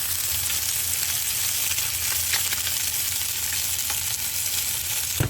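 Striped bass fillet searing skin-side down in hot oil: a steady, loud sizzle as the moisture is driven out of the skin to crisp it. The sizzle drops off abruptly near the end.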